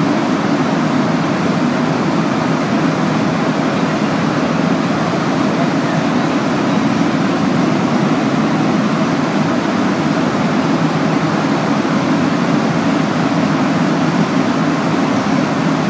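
Steady interior rumble of a Montreal Metro AZUR rubber-tyred train car running, heard from inside the car.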